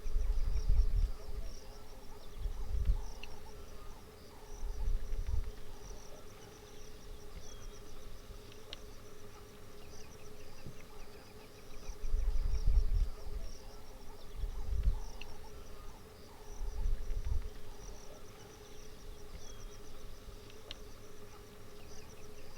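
Steady, fast-pulsing high chorus of insects in the savanna grass, with about six low rumbles that rise and fall away, the loudest near the start and about twelve seconds in.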